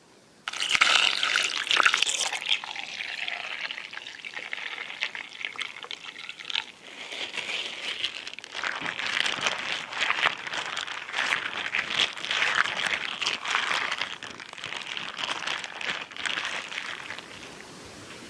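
Water pouring and splashing with a crackly, uneven texture, starting abruptly about half a second in and easing briefly in the middle.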